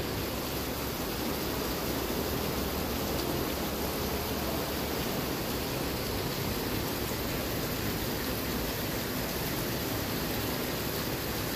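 Steady rushing noise of heavy rain falling on fast-flowing muddy floodwater, with no break or change throughout.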